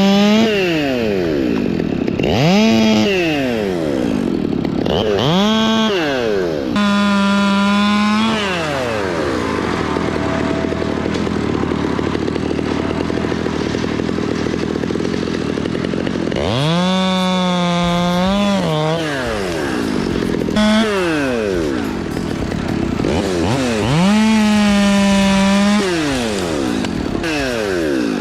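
Chainsaw engine revving up to full throttle and dropping back, over and over, with several stretches held at full speed as it cuts.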